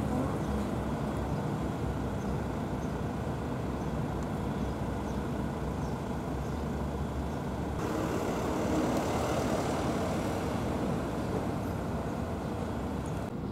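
Steady low outdoor rumble with no distinct events, becoming somewhat louder and brighter about eight seconds in.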